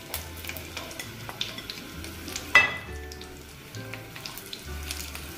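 Onion pieces sizzling as they fry in hot oil in a nonstick pan, stirred with a silicone spatula, with small clicks of the spatula and pieces. One sharp knock about two and a half seconds in.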